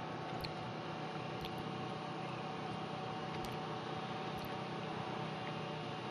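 Steady background hiss with a faint low hum, and soft faint ticks about once a second.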